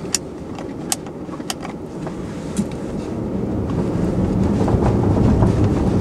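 Tesla Model S Facelift rolling off over paving stones, its tyre and road rumble growing steadily louder as it picks up speed. A few sharp clicks come in the first two seconds.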